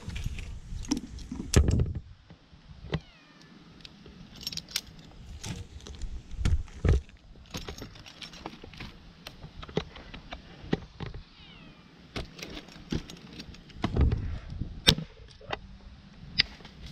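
Tree-climbing gear clinking and knocking: carabiners and rope hardware jangling and bumping against the trunk, with a few heavier thumps as the climber moves up. A kitten meows faintly twice.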